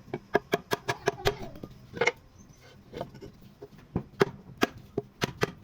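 Sharp wooden knocks of a hand tool striking wood during carving. There is a quick run of knocks in the first second or so, then single knocks spaced out after it.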